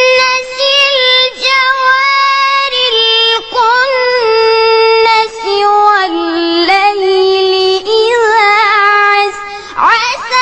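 A child's high voice holding long, ornamented melodic notes in tajweed-style Quran recitation, with wavering trills on each held note. The pitch steps down about halfway through and comes back up, and a quick rising slide comes near the end.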